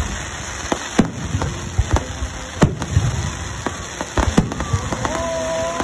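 Fireworks display: aerial shells and rising comets going off in quick, irregular bangs over a constant crackling hiss. From about five seconds in, a long held tone sounds over the bangs.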